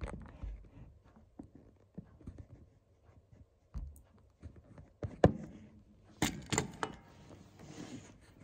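Handling noise: scattered clicks and knocks, the sharpest about five seconds in, then a quick run of clicks and a short rustling hiss near the end, as a small wooden music box and the phone are handled and the box is set down on a wooden table. The music box is not heard playing.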